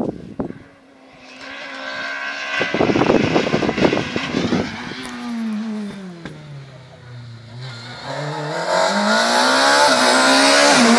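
Rally car engine approaching at speed. Its note drops as the car slows for the bend, then rises and grows louder as it accelerates hard toward the listener.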